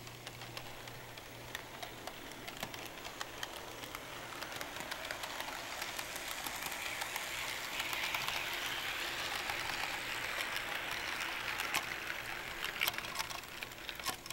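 HO scale model train of freight cars, led by a custom hyrail truck, rolling along the track. A steady rushing rattle with many small clicks, growing louder to a peak about eight seconds in as the cars pass close, then a few sharper clicks near the end.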